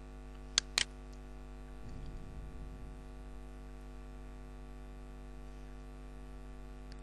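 Two quick computer mouse clicks about a fifth of a second apart, a little under a second in, over a steady electrical mains hum.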